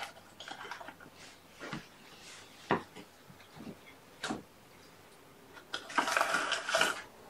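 Cat-food tins and dishes being handled: a few scattered clicks and knocks, then about a second of rustling near the end.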